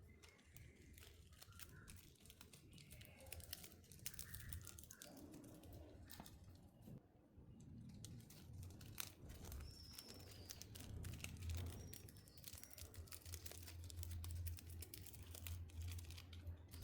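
Faint, irregular crinkling and rustling of wrapping being handled, over a low steady hum that grows louder partway through.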